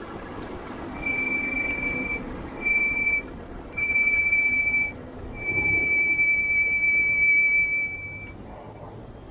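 A high, steady tone, like a whistle or an electronic beeper, sounds four times: about a second, half a second, a second, then about three seconds. A low background rumble runs under it.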